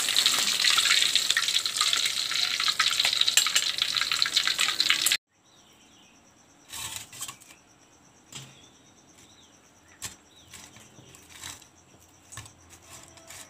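Milkfish frying in hot oil in a wok, a loud crackling sizzle that cuts off suddenly about five seconds in. Then it is quiet, with a few light knocks as fried fish and tofu are set on a plastic plate, and crickets trilling steadily in the background.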